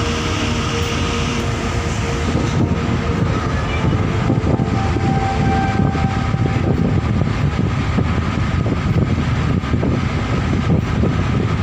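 Steady loud rumble and rushing noise of a large passenger ship underway, its engine drone mixed with a fluctuating rush of air.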